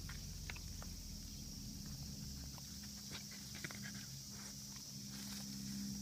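A dog snuffling and rustling through leafy weeds and shifting on gritty ground, making scattered light crackles and clicks, over a steady high-pitched summer cicada chorus.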